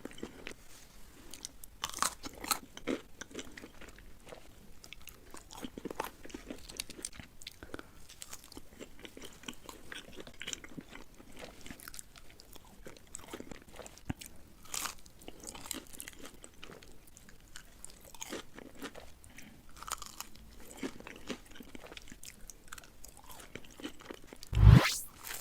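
Close-miked eating: crunchy bites and chewing, many short crackly clicks. Near the end, a brief loud whoosh rising in pitch.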